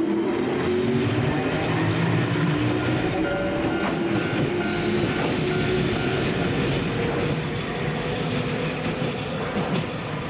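Hankai Tramway tram, car 353, pulling away along the street track: electric traction motor whine rising in pitch as it gathers speed, over steady wheel and rail noise that slowly fades as it moves off. A faint pulsing high tone sounds for a few seconds midway.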